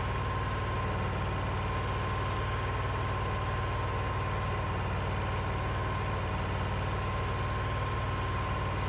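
An engine idling steadily, with an unchanging low hum.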